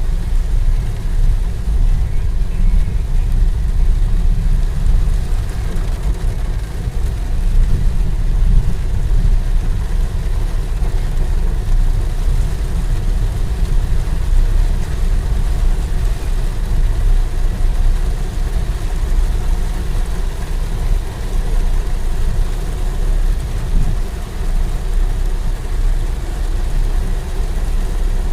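Heavy rain pouring down in a downpour, heard as a loud, steady, rumbling wash of noise.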